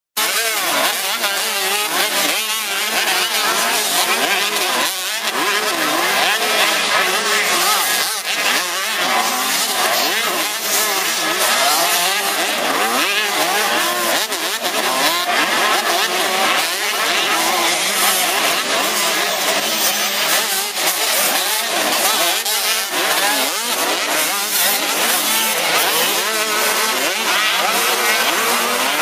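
Several 85 cc two-stroke motocross bikes racing, their engines revving up and down over one another in many overlapping rising and falling pitches.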